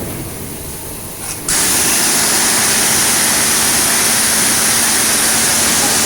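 A 500 bar electric high-pressure washer with a 22 kW motor running, then its gun trigger is pulled about a second and a half in: a sudden, loud, steady hiss of the high-pressure water jet over the steady hum of the pump.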